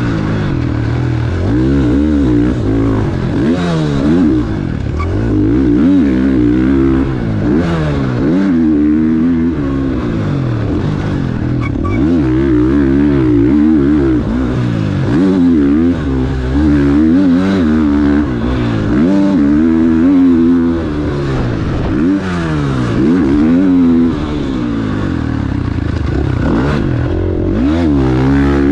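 KTM 450 SX-F single-cylinder four-stroke motocross engine ridden hard, revving up and dropping off again and again every second or two as the throttle is opened and chopped.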